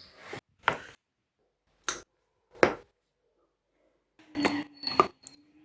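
Neck joints cracking: a series of short, sharp pops, about six spread out with silence between them. A low steady hum comes in about four seconds in.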